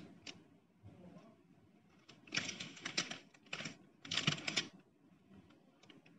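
Paper sandwich wrapper crinkling as the sub is handled, in a few short crackly bursts clustered in the middle.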